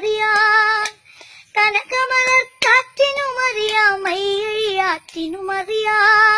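A girl singing a Malayalam song unaccompanied, in several long, drawn-out phrases with short breaths between them.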